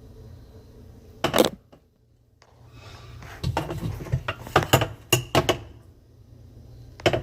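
Plastic dishwasher filter parts knocking and clicking as they are turned and fitted into the base of the tub: one sharp knock about a second in, a run of clicks and clatters in the middle, and another knock near the end.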